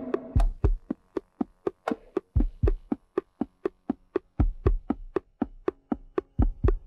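Isolated drums: a steady ticking pulse of sharp, dry clicks about three a second, with a few deeper drum thuds in between and a ringing tuned-drum tone dying away at the very start.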